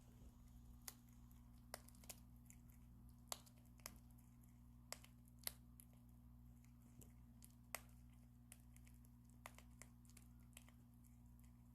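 A prairie dog cracking pumpkin seed shells with its teeth: faint, sharp clicks and cracks at an irregular pace, over a steady low hum.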